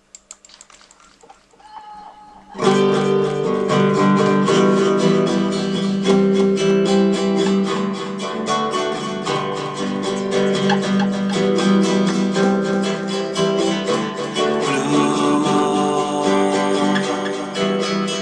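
Recorded band music with guitar, the instrumental intro of a mono song recording. It starts loud about two and a half seconds in, after a faint, quiet opening.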